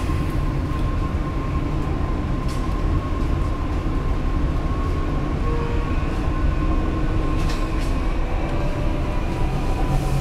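Dubai Metro train running at speed, heard from inside the car: a steady rumble of wheels on rail with a thin steady motor whine above it, and a couple of faint ticks.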